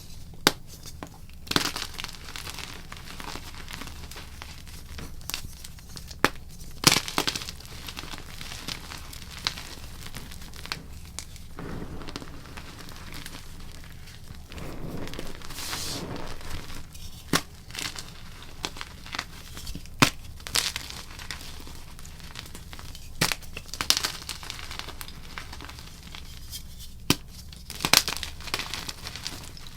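Blocks of gym chalk being crushed and crumbled, with irregular sharp crunches and crackles and a longer stretch of continuous crumbling about halfway through.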